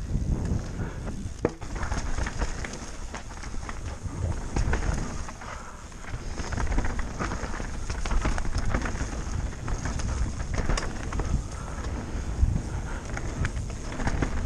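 Mountain bike descending a dirt forest trail: wind buffeting the microphone in a steady low rumble, with tyres on dirt and scattered knocks and rattles from the bike over bumps.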